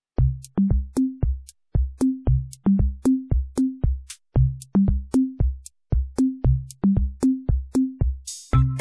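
Electronic music with a drum-machine beat: punchy, pitched electronic drum hits that die away quickly, in a steady pattern with sharp high ticks above.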